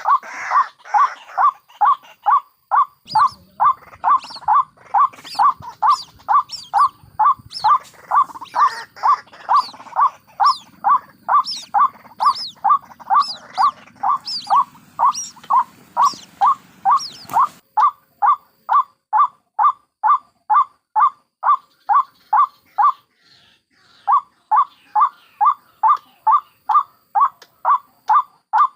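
White-breasted waterhen (ruak-ruak) calling over and over in a steady chant, about two short calls a second, broken briefly about three-quarters of the way through. For roughly the first half, higher, thinner calls and a low background rumble run alongside.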